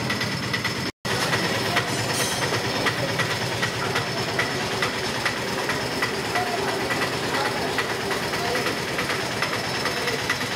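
Hot oil in a large iron kadai sizzling and crackling steadily as onion pakoda batter deep-fries; the sound cuts out for a moment about a second in.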